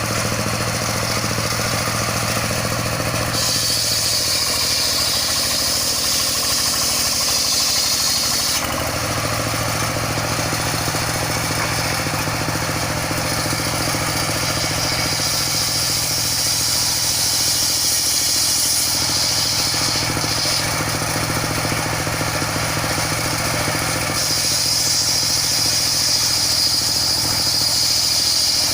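Circular sawmill running: the power unit hums steadily while the big saw blade cuts through a log in three spells, each adding a high, hissing whine. The spells run from a few seconds in to about the third of the way mark, again in the middle, and near the end.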